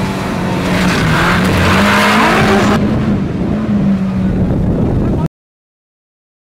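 Off-road jeep engine running at steady revs under a rushing noise; the sound cuts off abruptly about five seconds in, leaving dead silence.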